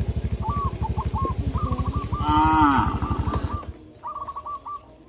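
A cow moos once, loudly, about two seconds in. Under it runs a steady low, rapid pulsing rumble that cuts off suddenly near the end. Birds chirp in short repeated phrases throughout.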